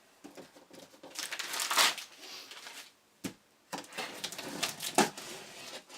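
A taped cardboard shipping box being pulled open by hand: rustling, crinkling and scraping of cardboard and packing tape in irregular bursts, with a sharp knock a little after three seconds in.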